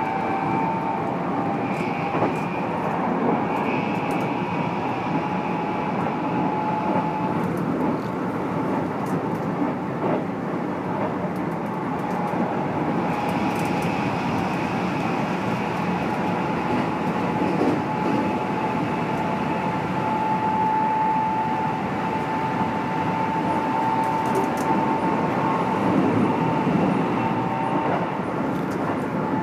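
Keikyu New 1000 series stainless train running at speed, heard inside the motor car: a loud, steady whine from its MB-5121-A traction motors under Toyo IGBT VVVF control rides over the rumble of wheels on rail, with occasional rail-joint clicks. This set is known as an unusually loud, abnormal-noise car.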